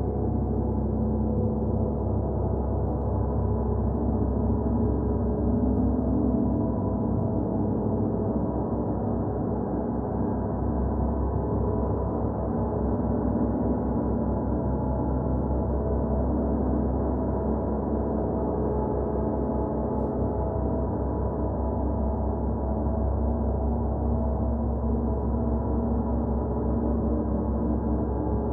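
Gong sounding as a continuous, sustained wash of many overlapping tones, holding at a steady level with no distinct strikes standing out.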